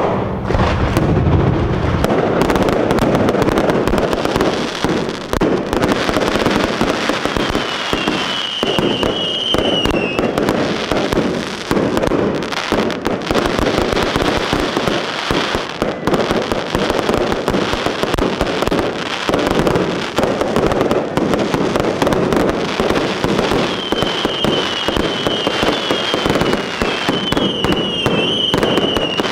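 Fireworks display: dense, continuous crackling and popping bangs, with short whistling tones twice, about a third of the way in and near the end.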